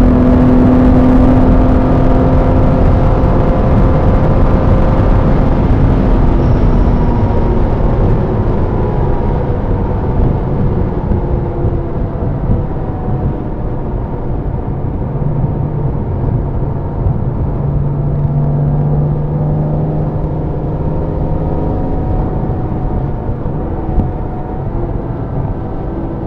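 Car engine and road noise heard from inside a car on a wet race track. The engine note slowly falls and grows quieter about a third of the way in, as the car eases off and slows.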